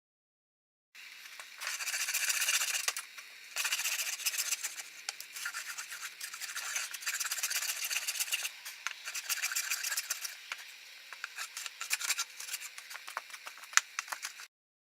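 A hand tool rasping along wood in a run of uneven strokes, a dry, scratchy sound.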